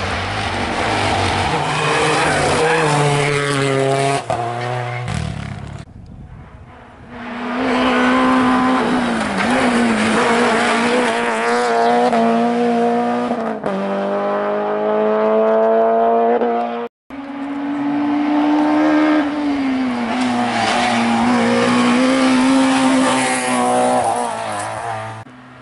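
A succession of small hatchback rally cars (Renault Clios, a Citroën C2) at full attack, their engines revving hard with the pitch climbing as they accelerate through the gears. The sound cuts abruptly from one car to the next, with a brief moment of silence about 17 seconds in.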